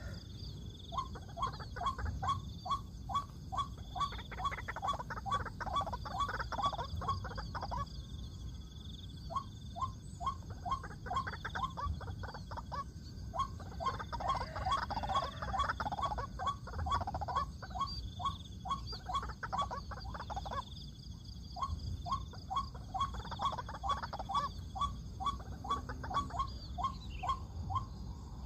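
White-breasted waterhen calling: a long series of repeated "kruak" notes, about three a second, in runs broken by a few short pauses.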